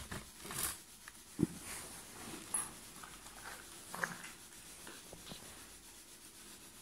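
Quiet stretch with faint rustles and a few small knocks and clicks, the sharpest knock about a second and a half in.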